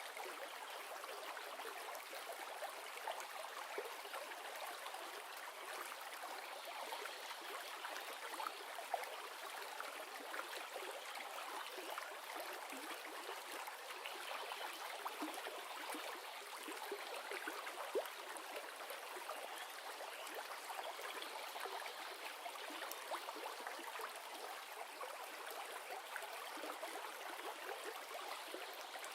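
Running river water flowing steadily, an even rushing hiss with small splashes and trickles through it.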